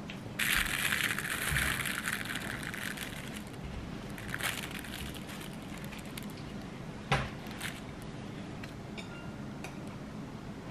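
Plastic packaging of a natto cup crinkling loudly for about three seconds as it is opened, then lighter rustles. One sharp knock about seven seconds in, and faint small crinkles near the end as a sauce sachet is torn open.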